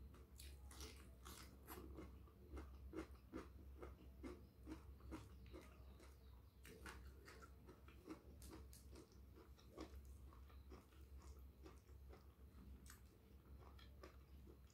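Faint, close-up chewing and smacking mouth sounds of a person eating rice with eggplant sambal and salted fish by hand, as a run of short, irregular clicks over a low steady hum.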